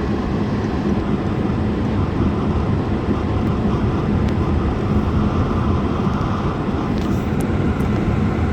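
Subaru Outback driving through deep snow: steady engine and road noise with a low hum, and a few faint ticks near the end.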